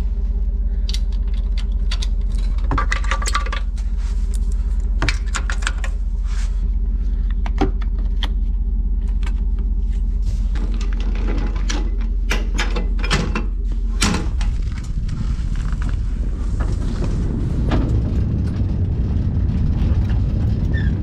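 Vehicle engine idling with a steady low hum while the trailer hitch and wiring plug are handled: irregular metallic clanks and clicks. About 14 seconds in this gives way to the rougher rumble of the vehicle driving on the road, towing the boat trailer.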